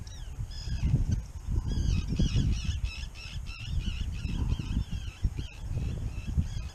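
A large flock of harbor waterbirds, gulls and ducks, calling at once: many overlapping high calls, busiest in the middle of the stretch. Wind rumbles on the microphone underneath and is the loudest part.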